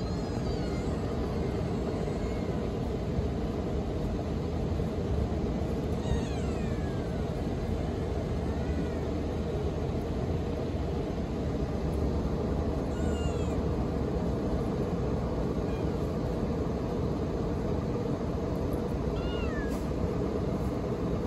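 Kitten mewing: several thin, high-pitched mews at irregular intervals, some gliding down in pitch, over a steady low background rumble.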